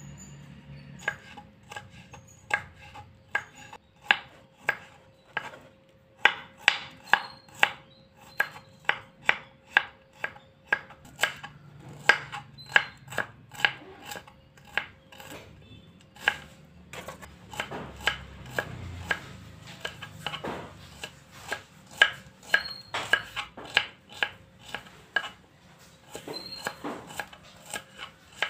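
Kitchen knife slicing bird's-eye chilies and then shallots on a wooden cutting board. The blade taps the board sharply in a steady rhythm, about two to three cuts a second.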